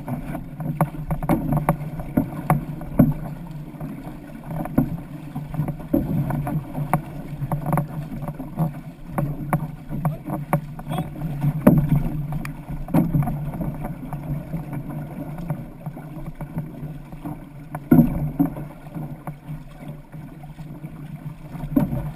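Outrigger canoe under race paddling: water rushing along the hull close by, broken by the frequent splashes of paddle blades driving through the water, with a few louder splashes along the way.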